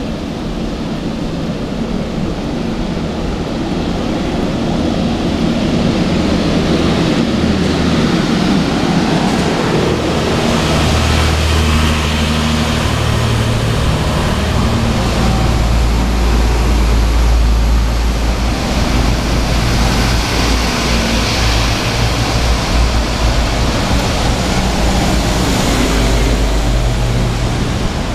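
Road traffic running close by, with a large diesel bus's steady low engine rumble that grows stronger about ten seconds in. A broad hiss of passing vehicles swells and fades over it.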